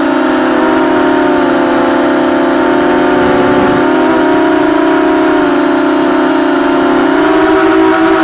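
EMAX RS2206 2300KV brushless motors and propellers of a multirotor drone in flight, giving a loud, steady whine whose pitch shifts slightly up and down with the throttle.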